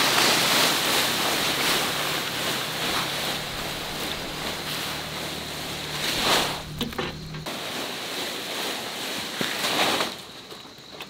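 Wind rushing over the microphone and through the vegetation, a steady noisy rush that swells in gusts and falls away sharply near the end. A faint steady high whine runs underneath.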